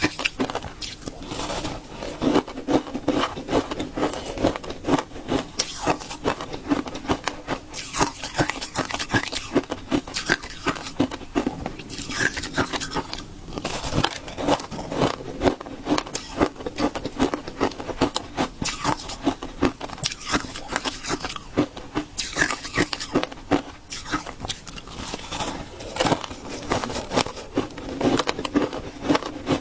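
Someone biting and chewing shaved ice: a continuous run of crisp crunches, several a second, without a break.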